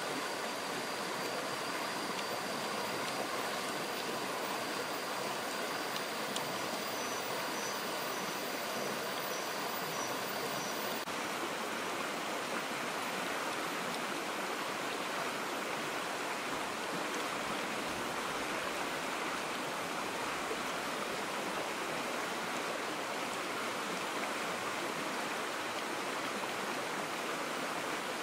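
Shallow stream rushing over rocks: a steady, even rush of water.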